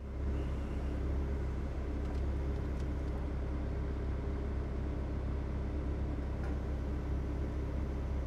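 John Deere 85G excavator's diesel engine running steadily with a low, even drone while the arm lowers the quick coupler and thumb onto the ground.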